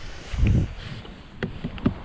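Knocks and bumps in a small aluminium boat: a low, heavy thump about half a second in, then a few sharp knocks near the end, over a steady low rumble.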